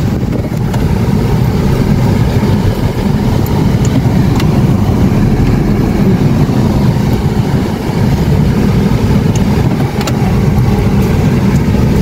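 Car engine and road noise in a slow-moving car, a steady low rumble.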